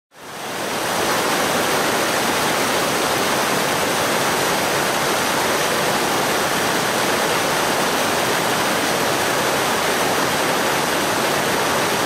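River water rushing steadily over rocks and a low stone barrier of rapids, fading in over the first second.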